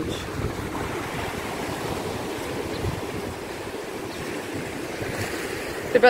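Sea surf: small waves breaking and washing onto the shore in a steady wash.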